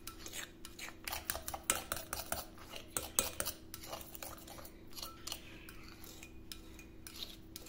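Metal spoon stirring thick cake batter in a glass mixing bowl, scraping and clinking against the glass in many quick, irregular clicks.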